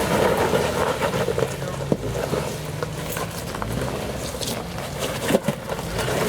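Jeep Wrangler engine running at low revs as it creeps forward over rock, with a couple of sharp knocks, about two seconds in and near the end.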